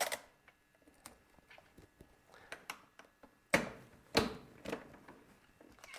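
35mm film splicer worked by hand: small clicks and rustles of film and tape, then two sharp metal clunks a little over halfway as the splicer's punch is pressed down to cut the sprocket holes through the splicing tape.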